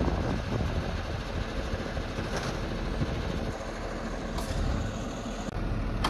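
Fire truck engine running steadily, with a short hiss about four and a half seconds in.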